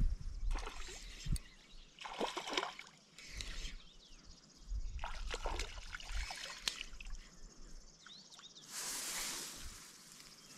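Water splashing and trickling in short irregular bursts as a small hooked chub is brought in at the river's edge, with a longer splash near the end.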